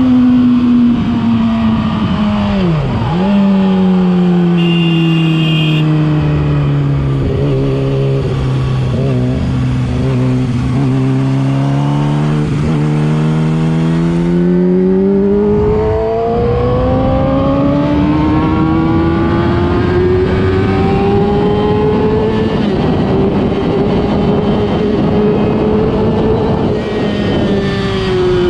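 Yamaha R6 inline-four engine through a LeoVince exhaust while riding. Engine speed falls steadily for about twelve seconds, with a quick dip and recovery about three seconds in. The engine then picks up again with a rising pitch and holds high revs, with a short drop in pitch near the end before it climbs again.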